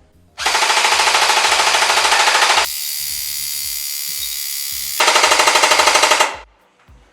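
Lancer Tactical LT-19 airsoft electric gun on a 9.6 V battery firing full automatic, about a dozen shots a second, emptying a fully wound high-capacity magazine. It fires in two long bursts with a steadier, thinner stretch between them.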